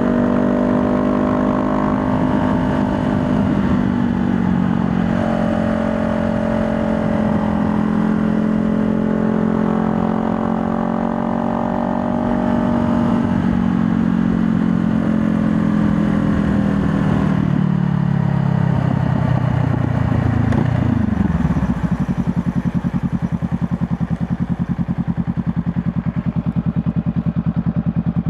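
2020 Honda Rebel 500's parallel-twin engine running under way at a fairly steady pitch, then falling in pitch as the bike slows, and settling into an even, pulsing idle for the last several seconds.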